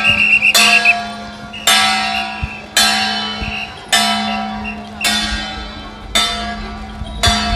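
A bell-like metal instrument struck at an even pace, about once a second, each stroke ringing out and fading before the next, over a steady low hum.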